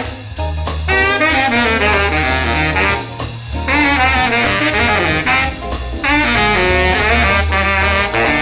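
Baritone saxophone playing a jazz line in phrases of moving notes, with brief breaks between phrases, over a band with low bass notes and drum hits.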